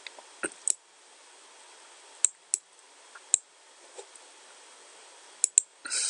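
Computer mouse clicks: several short, sharp clicks, some in quick pairs, over a faint steady hiss, with a brief rustle near the end.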